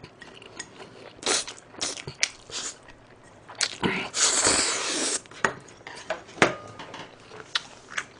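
A person slurping spicy stir-fried instant noodles close to a microphone, several short slurps and one long loud slurp about four seconds in. Then chewing with wet mouth clicks.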